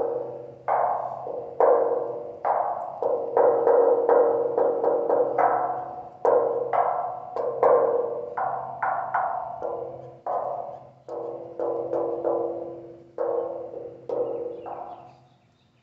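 Knuckles rapping some thirty times in an uneven rhythm on a polished stainless steel ribbon sculpture. Each knock rings with a metallic tone, giving a few different pitches. Under the knocks the continuous metal piece keeps up a low vibration, and the ringing dies away near the end.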